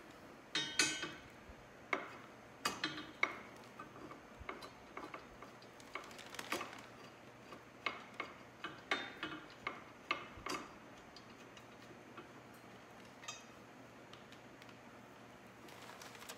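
Irregular metallic clicks and taps of a hand tool, an Allen wrench, working a crash-bar bolt on a motorcycle frame. They come thick for about the first ten seconds, then only one or two.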